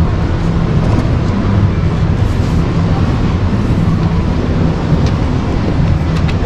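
Steady, loud rumbling ambience of a large exhibition hall, a constant wash of low noise without distinct events, with a few faint clicks near the end.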